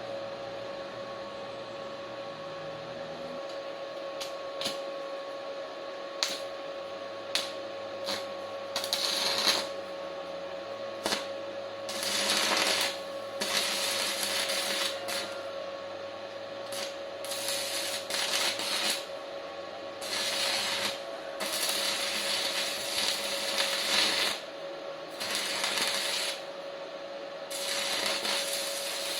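Stick (MMA) welding with a small Ryu 450-watt welding machine: the arc crackles and sizzles in repeated runs of one to two seconds, with scattered sharp pops between them. A steady whine runs underneath.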